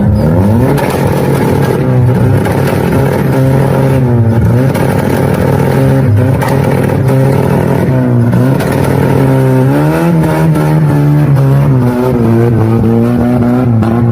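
Modified Chevrolet Kadett's engine being revved over and over through a loud exhaust, its pitch climbing and falling back with each blip of the throttle.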